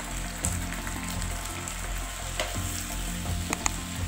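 Genjer (yellow velvetleaf) leaves and button mushrooms sizzling in a wok as they are stir-fried, with a few short clicks as the utensil knocks against the pan.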